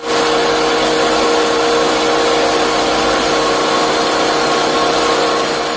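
6N100-type mini combine rice mill, driven by a 3 HP single-phase electric motor, running under load while milling paddy: a steady hum and whine over a dense rushing noise, with milled rice pouring from the outlet chute into a metal bucket.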